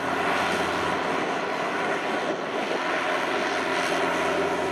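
Kubota DC70 tracked combine harvester's diesel engine running steadily under load while its rear rotary tiller churns wet paddy soil.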